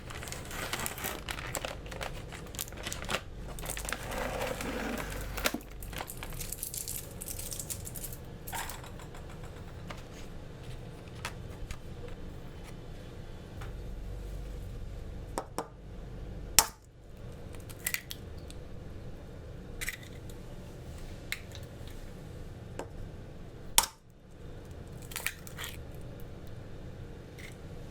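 Rustling and crinkling with scattered sharp clicks and knocks, as of objects being handled in a small room.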